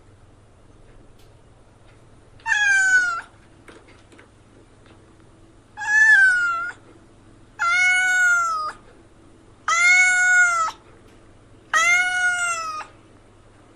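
A cat meowing five times, a second or two apart. Each meow is drawn out for nearly a second and rises and then falls in pitch.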